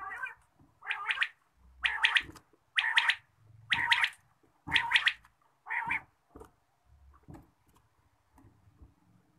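A quail (batair) calling, a short call of a few quick notes repeated about once a second, seven times, then stopping about six seconds in.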